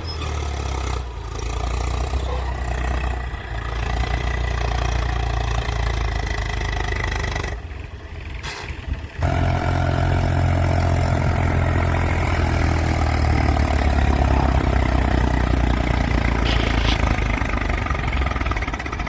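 Case 851EX backhoe loader's diesel engine running. It drops off briefly about eight seconds in, then comes back suddenly and runs louder from about nine seconds in.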